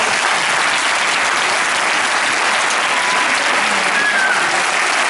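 Audience applauding steadily, with a couple of short calls over the clapping.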